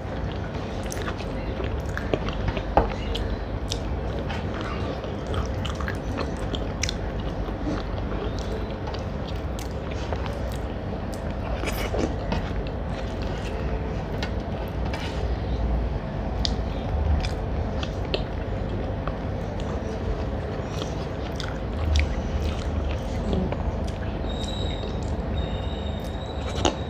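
A person chewing food close to the microphone, with soft mouth sounds and scattered small clicks, over a steady low hum.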